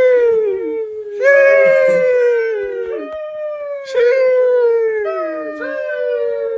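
The 'Sheesh' meme sound effect: about four long, drawn-out, howl-like high cries in a row. Each starts with a short hiss and slowly falls in pitch, and some cries overlap.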